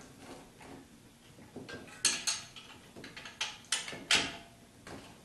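Wrench clinking on the alternator's bracket bolt as the bracket is tightened: a handful of sharp metallic clinks and taps, the loudest about two seconds in and again about four seconds in.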